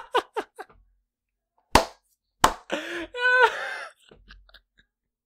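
A man laughing hard and breathlessly into a close microphone. Quick short bursts fade out in the first second, then come near-silent gaps broken by two sharp bursts, and a high-pitched held note of laughter about three seconds in.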